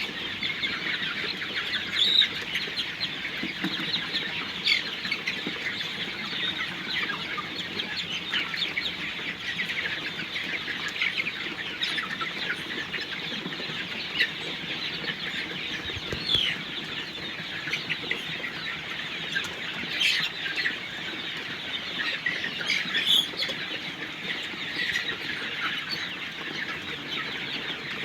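A flock of Sonali chickens in a poultry shed, many birds calling and clucking at once in a steady, dense din, with a few louder calls standing out.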